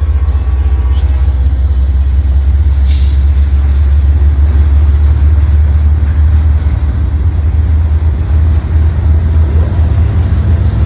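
Norfolk Southern freight train rolling past: a loud, steady low rumble of the cars on the rails, with brief high squeals about three seconds in and again near the end.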